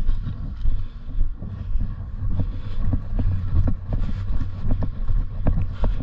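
Wind noise rumbling on a body-worn camera's microphone, with regular thumps about twice a second like running footsteps. Sharp clicks come through from about two seconds in.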